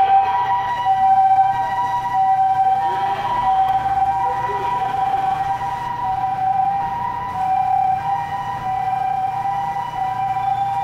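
Japanese ambulance siren sounding its two-tone hi-lo "pee-poh" call, the two pitches alternating steadily as the ambulance drives away, growing a little fainter, with a low vehicle rumble beneath.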